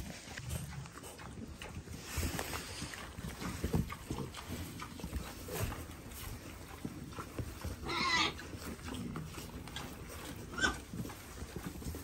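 Piglets grunting and snuffling close up as they nose at a hand, with a brief louder squeal about eight seconds in.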